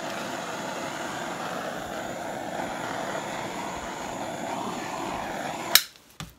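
Handheld hot-air blower running steadily over freshly poured white acrylic paint, used to bring up and pop air bubbles, then switched off with a click near the end.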